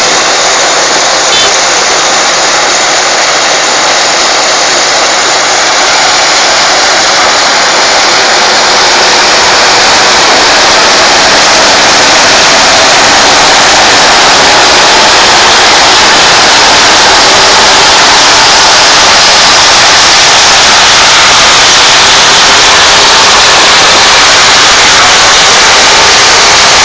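Sugarcane harvester running: a loud, steady mechanical noise that grows a little louder over the first several seconds.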